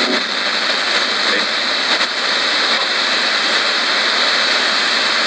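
Portable analogue radio hissing with steady static as its tuning dial is swept slowly by hand between stations, a manual-scan ghost box sweep.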